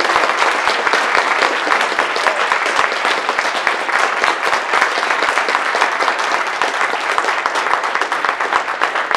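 Audience applauding: a dense, steady mass of many hands clapping, easing off a little near the end.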